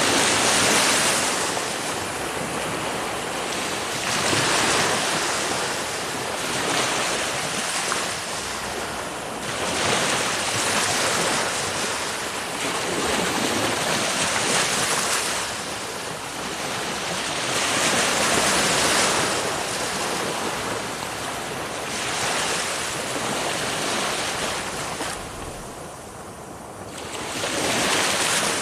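Ocean waves breaking on a shore, the surf swelling and easing every few seconds.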